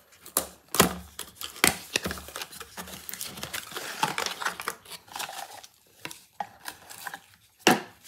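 Small cardboard box being opened and its contents handled by hand: sharp taps and knocks of the box and lid, with rustling and crinkling of paper and packaging in between, the sharpest knock near the end.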